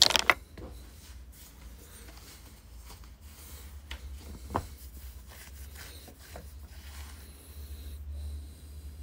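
Handling noise from a small cardboard box and a flat lithium-polymer battery turned over in the hand: a brief loud rattle of clicks at the start, then quiet rubbing with one sharp tap about four and a half seconds in, over a low steady hum.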